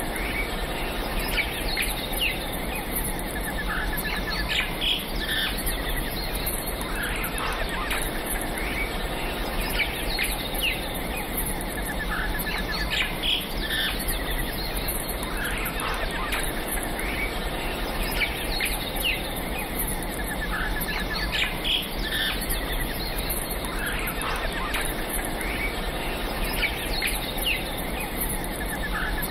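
Outdoor wildlife ambience: many birds chirping and calling in short, scattered notes and quick pitch glides, over a dense high, rhythmic chirring of insects and a steady background hiss.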